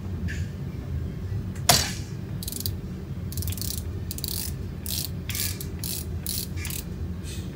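A ratchet wrench clicking in short back-and-forth strokes, about two a second, as it unscrews a left-hand-threaded seal cap on a mud-motor lower unit. A single sharp metallic knock comes about two seconds in.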